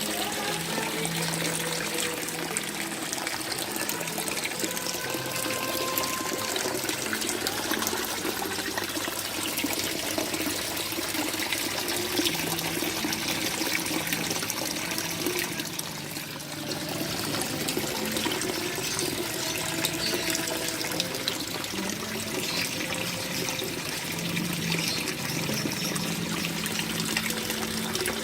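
Water running and trickling steadily, splashing without a break, with a brief dip about sixteen seconds in.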